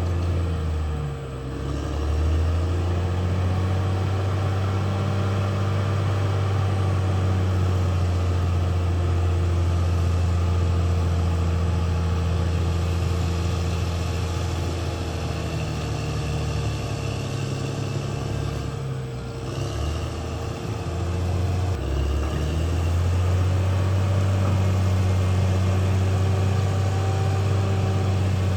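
Caterpillar D6R XL bulldozer's diesel engine running steadily while working, its pitch dipping and recovering about a second in and again about two-thirds of the way through.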